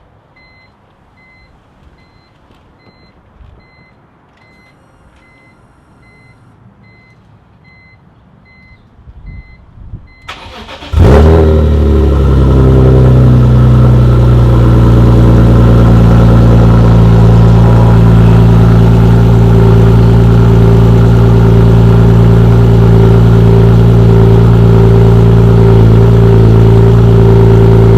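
BMW E46 M3's S54 inline-six is cranked and catches about eleven seconds in, then idles loud and steady through a freshly fitted Top Speed muffler, with an exhaust leak at one of the pipe joints.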